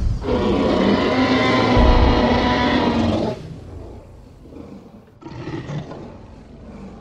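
Tyrannosaurus rex roar sound effect: one long, loud, pitched roar of about three seconds that cuts off sharply, followed about two seconds later by a quieter, shorter call.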